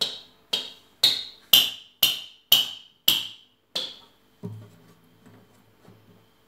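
A small hammer knocking on a guitar, eight sharp ringing strikes at about two a second, followed by a softer thud about four and a half seconds in.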